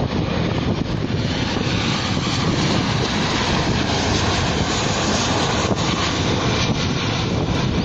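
Boeing 737-800 jet with CFM56-7B turbofan engines flying low on final approach with its landing gear down. The engine noise is loud and steady as it passes close by.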